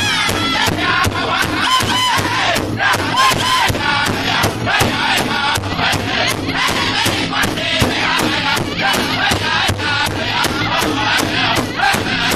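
Powwow drum group singing an intertribal song: several men singing together over a large hide drum that they all strike at once in a steady, even beat.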